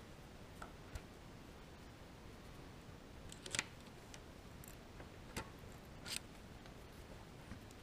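A few faint, brief metallic clicks and taps, the loudest about three and a half seconds in and again near six seconds, from handling a center punch set in the pin hole of a mill knee's crank adapter.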